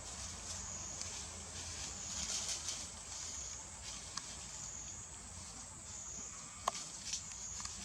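High, steady insect chorus that swells and fades every second or two, with a few sharp clicks or snaps, the loudest about two-thirds of the way in.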